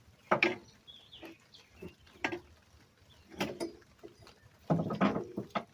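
Chickens clucking nearby: a string of short calls about a second apart, with a longer run of clucks near the end.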